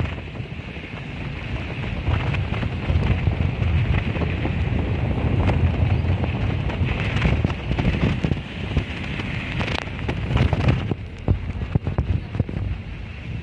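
Wind buffeting the microphone at an open window of a moving bus, over a low road rumble and rain on a wet road. Many small irregular ticks and patters run through it.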